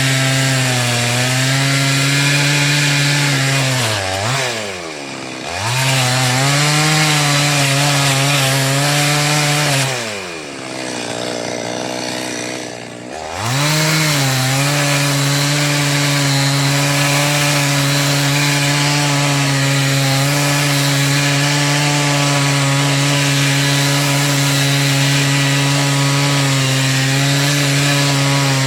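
Two-stroke chainsaw running at high revs, cutting wood. Twice it drops in pitch and loudness, briefly about four seconds in and for about three seconds near the middle, then climbs back to full speed.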